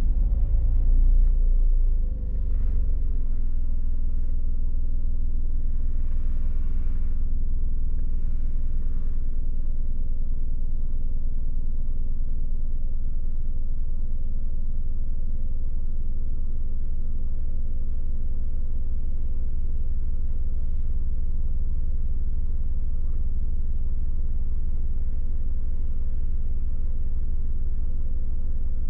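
Car being driven, its engine and road noise making a steady low drone. It is louder for the first two seconds, then settles to an even level.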